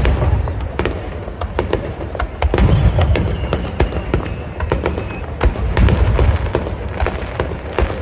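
Aerial fireworks going off in quick succession: deep booms overlapping with many sharp crackling pops.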